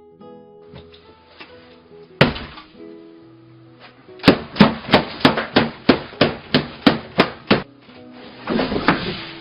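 Background music with a single sharp knock about two seconds in, then a quick run of about a dozen sharp knocks, roughly three a second. A short noisy rustle comes near the end.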